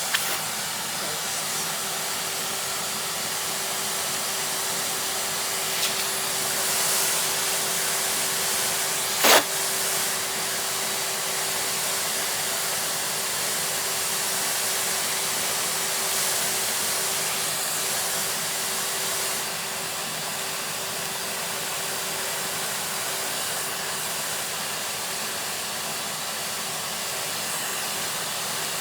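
Vacuum cleaner running steadily, a rushing noise with a constant hum. A single sharp knock about nine seconds in.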